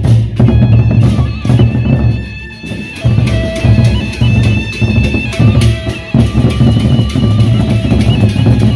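Sasak gendang beleq ensemble playing: large double-headed barrel drums beaten in a loud, fast, driving rhythm, with steady ringing higher tones sounding over the drumming.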